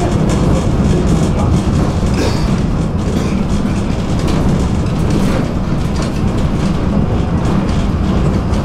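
Tram running along its rails, heard from on board: a steady low rumble with occasional light clicks.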